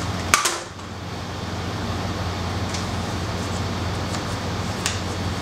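Steady low room hum and hiss, with one sharp click about a third of a second in and a few faint ticks later as a small notebook is handled and opened on a table.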